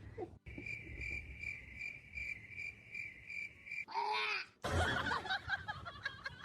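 High-pitched chirping, about three chirps a second, of the kind a cricket makes. About four seconds in, a short pitched cry is followed by a burst of clattering, scuffling noise.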